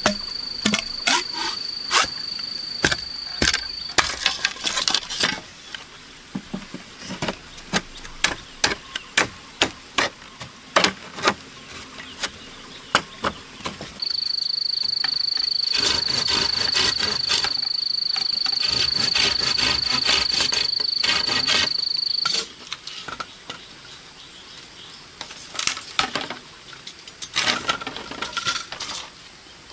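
Sharp knocks of a machete blade chopping and trimming green bamboo poles, coming in irregular runs. A steady high-pitched insect buzz sounds for the first few seconds and again from about halfway to two-thirds of the way through.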